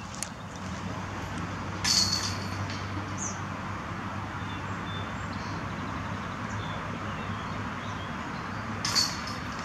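Metal chains of a disc golf basket jangling as a disc hits them, twice: once about two seconds in and again near the end, each a brief bright clash that rings on for a moment. Steady outdoor background, with a faint bird chirp.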